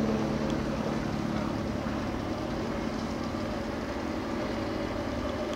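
A steady motor drone holding one pitch, over a background of outdoor noise.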